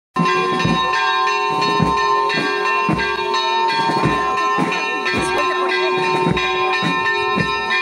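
Church bells in an open belfry ringing a fast peal, struck about twice a second, each new strike landing over the still-ringing tones of the last.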